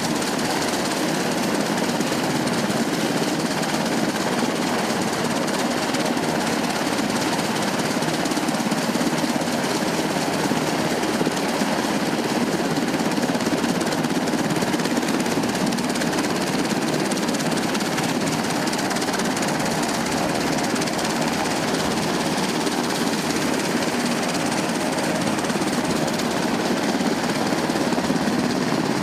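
UH-60 Black Hawk helicopter running at close range: a steady, rapid chop from the main rotor over the drone of its twin turboshaft engines.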